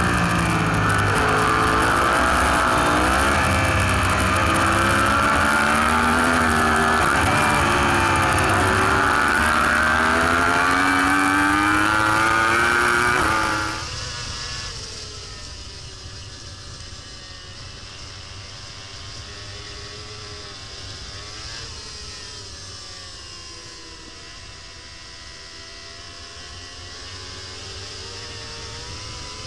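Onboard sound of a Yamaha R1 racing superbike's inline-four engine at race speed, loud, its pitch climbing steadily as it pulls through a gear. About halfway through it switches to a Honda Fireblade superbike's onboard, much quieter, the inline-four's note rising and falling.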